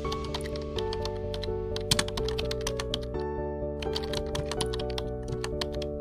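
Soft background music with held notes, overlaid by a keyboard typing sound effect: a rapid run of key clicks, a short pause about three seconds in, then a second run of clicks.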